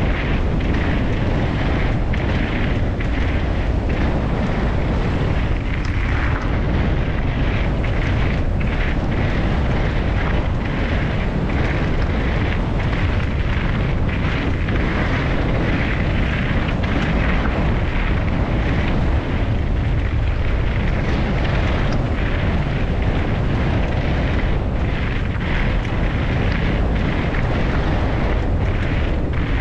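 Mountain bike descending fast on a gravel trail, heard through a helmet camera: a steady roar of wind and rolling tyres, with frequent short knocks and rattles as the bike runs over the stony surface.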